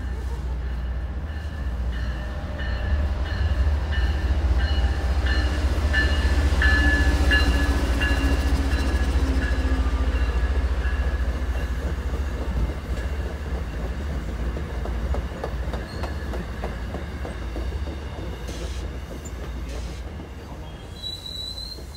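MBTA commuter rail train of bilevel coaches passing along the tracks: a steady rumble and clatter of wheels on rail with a few faint high ringing tones, building to its loudest about six to eight seconds in and then slowly fading as it moves away.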